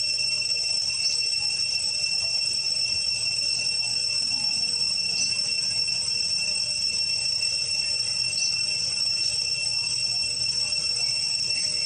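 Steady high-pitched drone of an insect chorus in the trees, a few fixed ringing pitches held without a break. A few short faint chirps come over it every second or two.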